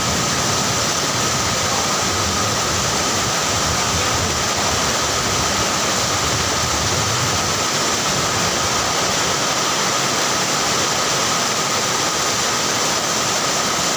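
Heavy rain pouring down in a steady, dense rush.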